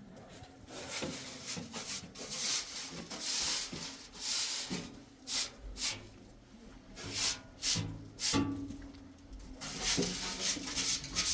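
A series of irregular rough scraping or rubbing strokes, each lasting well under a second, with short pauses between them.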